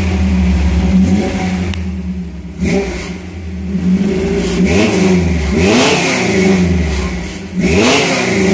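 Toyota 22R four-cylinder carbureted engine in a 1978 Hilux idling, revved in about four quick blips that rise and fall back to idle, heard through a Thrush welded muffler. Things on the truck can be heard vibrating, including an exhaust pipe held up only with wire.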